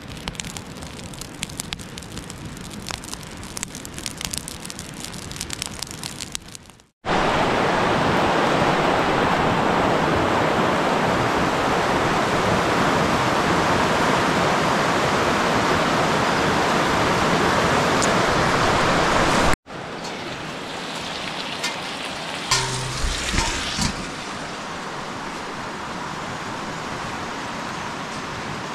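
Rain: separate drops pattering on a surface, then after a hard cut a loud, even rush of water for about twelve seconds, then after another cut a quieter steady rush with a few knocks partway through.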